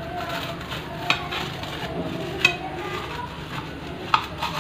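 A knife sawing through the crisp, oven-toasted crust of a sandwich: a steady crunchy crackle with a few sharp cracks.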